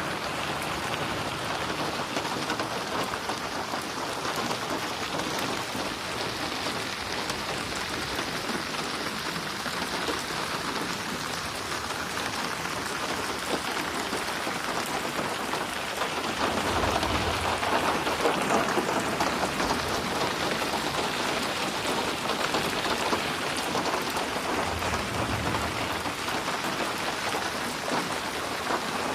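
Steady rain falling and splashing on a surface, a continuous hiss of drops that grows heavier for a few seconds just past the middle.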